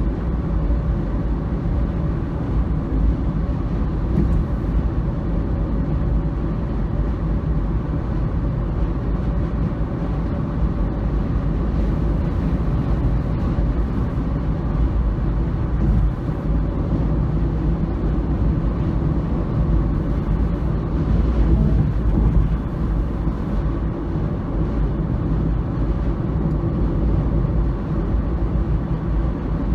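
Steady low rumble of a vehicle in motion, with a faint constant hum and no distinct events.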